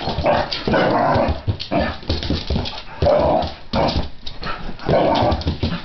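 Pit bull barking and whining in repeated short bursts, about four loud ones.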